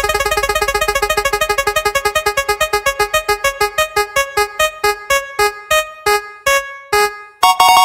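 Spinning prize-wheel sound effect: rapid electronic pitched ticks that slow down steadily until they stop, then a short bright chime flourish near the end as the wheel settles.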